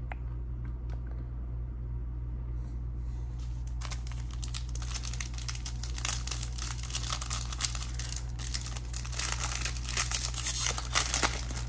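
A foil trading-card pack being crinkled and torn open in the hands. It starts with a few faint clicks of handling, and the dense crinkling begins about three and a half seconds in, over a steady low hum.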